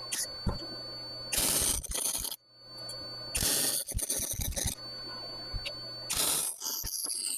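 Three separate scraping noises, each lasting about a second, over a steady background hum.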